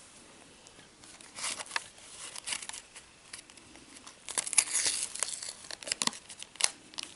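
Plastic-foil wrapper of a Pokémon trading card booster pack crinkling as it is handled and worked open by hand. There are a few crinkles about a second and a half in, then a longer stretch of crackling about four seconds in, with sharp ticks near the end.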